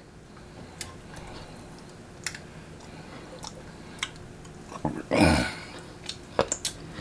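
Close-up mouth sounds of eating rotisserie chicken: scattered small wet clicks and smacks of chewing and licking fingers, with one louder, longer mouth noise about five seconds in.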